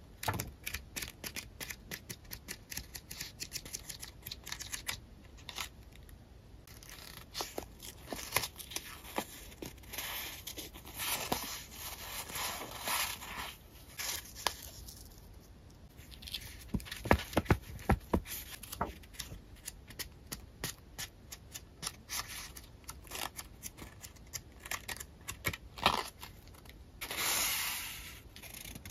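Paper collage material being handled: a pad of printed paper sheets riffled with rapid flicking clicks, then loose die-cut paper pieces and printed sheets shuffled and rustled, with a few soft taps.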